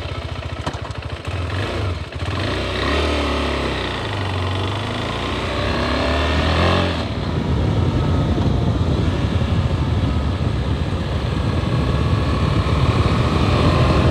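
Motorcycle engine idling with a rapid, even beat, then revving and pulling away, its pitch rising and dropping through the gears, then running steadily at road speed.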